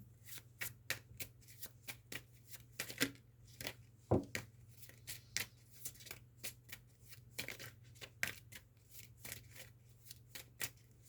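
A tarot deck being shuffled by hand: a long run of quick, irregular card flicks and taps. A steady low hum sits underneath.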